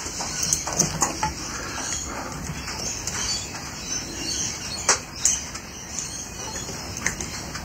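Scattered light clicks and taps of a soldering iron and wires being handled at the switch stacks of an electromechanical pinball machine, the sharpest about five seconds in, over a steady background noise.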